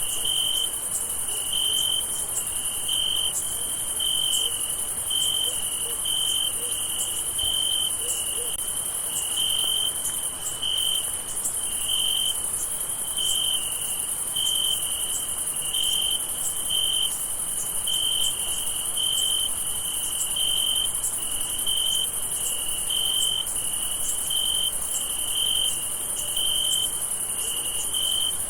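Crickets chirping at night: a regular pulsing chirp, over a steady high-pitched insect trill.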